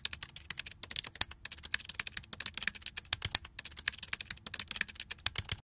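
Typing sound effect: a rapid, irregular run of keyboard key clicks that stops abruptly near the end.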